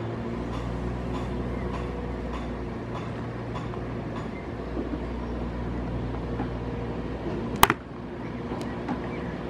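A steady low hum with a few even pitched tones, like a machine running, and one sharp knock about seven and a half seconds in.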